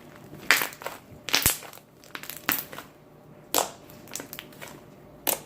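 Homemade slime being squeezed and pressed by hand, giving short, irregular crackly pops, about six of them.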